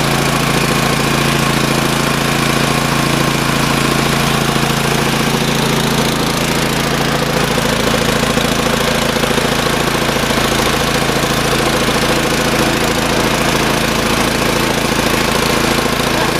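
Small gasoline engine of a portable air compressor running steadily after a pull start, choke fully off.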